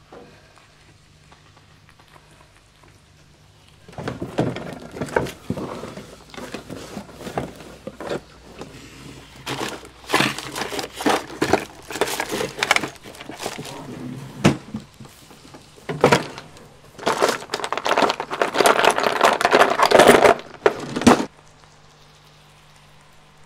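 Hurried rummaging through a cluttered desk drawer: rapid clattering, knocking and rustling of cables and small objects, starting about four seconds in and stopping abruptly near the end.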